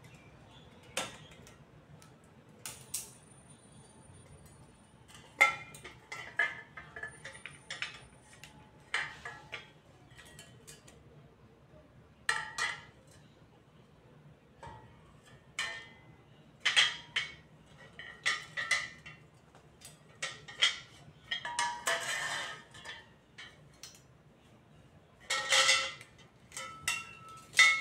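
White metal frame parts of a flat-pack shoe bench being taken out of their bundle and set down on a tile floor: a string of irregular clinks and clanks, some leaving a short metallic ring.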